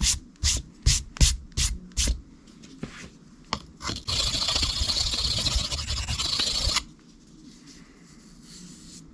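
Knife blade scraped across a diamond sharpening stone while an edge bevel is being put on: about six quick separate strokes in the first two seconds, two more a little later, then a continuous scrape of nearly three seconds that stops abruptly.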